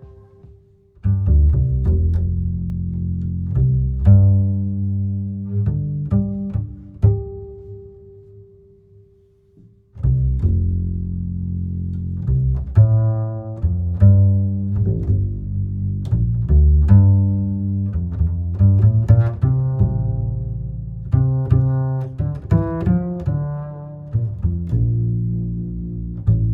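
Instrumental music of low pitched notes with sharp, plucked-sounding starts, coming in about a second in, dying away, and starting again about ten seconds in.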